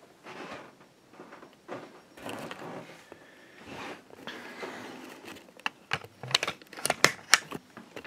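Rustling and handling noises from the camera being moved, then a quick run of sharp clicks and knocks in the last few seconds, loudest near the end.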